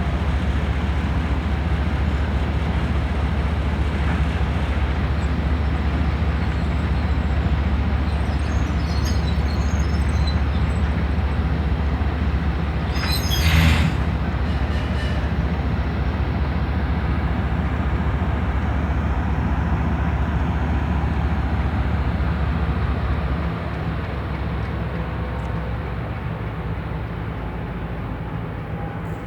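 TE33A diesel locomotive's GEVO-12 diesel engine running with a deep steady hum, cut by a short sharp burst of air hiss about halfway through. Near the end the deepest part of the hum drops away and the engine sound gets quieter.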